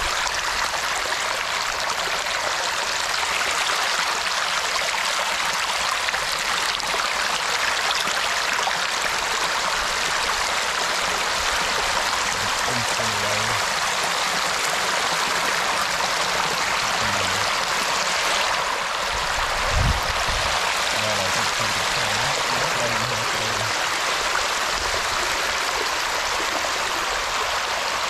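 Steady rush of flowing water, with a brief low thump about two-thirds of the way through.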